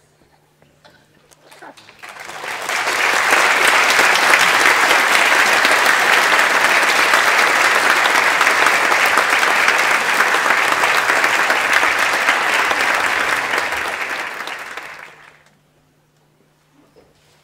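Audience applauding: the clapping builds up about two seconds in, holds steady, and dies away about fifteen seconds in.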